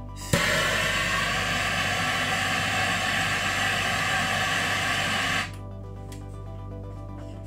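Handheld gas torch clicking alight and hissing steadily as its flame is held into a wood stove's firebox to light the kindling, then shut off abruptly about five and a half seconds in. A few small clicks follow.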